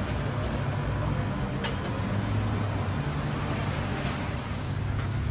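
Steady low mechanical hum under a broad hiss of background noise, with a faint click nearly two seconds in.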